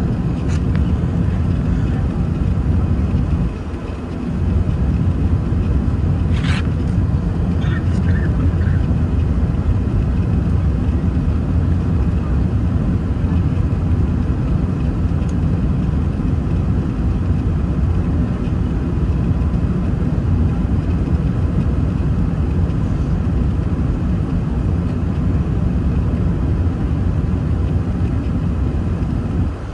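Airbus A380 cabin noise on descent, heard from a window seat over the wing: a steady low rumble of the Rolls-Royce Trent 900 engines and airflow over the airframe. It dips briefly about four seconds in, and a few short clicks come about six to nine seconds in.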